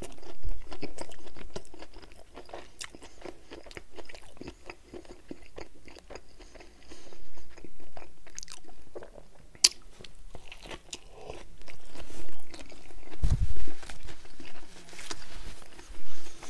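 Close-miked biting and chewing of a Burger King Whopper, with many small irregular wet clicks of mouth and food. A few low thuds come near the end.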